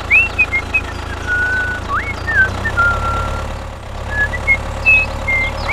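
Tractor engine idling with a steady low rumble. Short high whistled chirps come and go above it several times.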